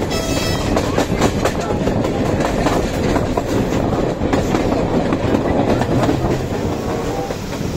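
Train of Bo passenger coaches running along the track: a steady rumble with the wheels clicking over the rail joints.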